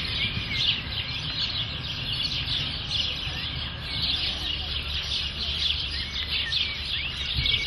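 Many small birds chirping and twittering together in a dense, continuous chorus, over a steady low rumble.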